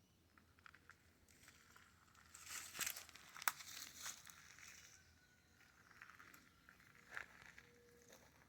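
Faint crinkly rustling and scratching with a few sharp clicks, busiest from about two to five seconds in.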